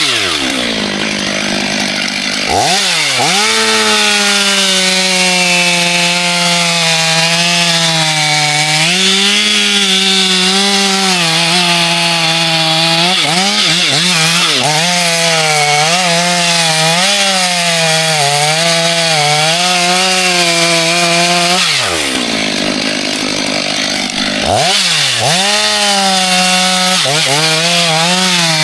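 Chainsaw engine running at full throttle while cutting wood, its pitch wavering as the chain bites. Twice, about a second in and again about 22 s in, it drops sharply to a low speed for a couple of seconds, then revs straight back up.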